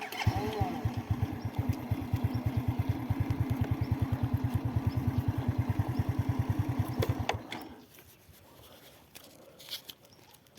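Motorcycle engine running at idle with an even beat of about ten pulses a second, then switched off about seven seconds in, the sound dying away quickly.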